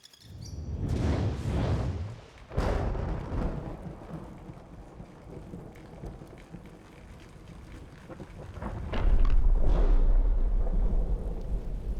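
Deep, thunder-like rumbling and booms. A low rumble swells up at the start, a sudden loud boom comes about two and a half seconds in and dies away, and a heavy steady low rumble sets in about nine seconds in.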